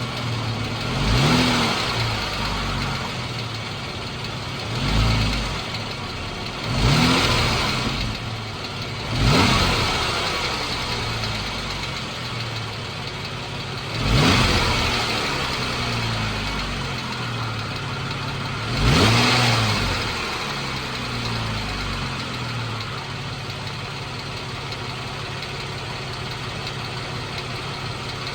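A 2014 Jeep Wrangler's 3.6 Pentastar V6 idles and is blipped six times, each rev rising and dropping back to idle, then settles to a steady idle for the last several seconds. The engine has a ticking noise that the owner suspects is either a rocker arm or a valve tick.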